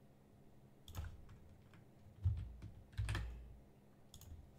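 Computer keyboard keys pressed one at a time, about four separate keystrokes roughly a second apart, as a text edit is made.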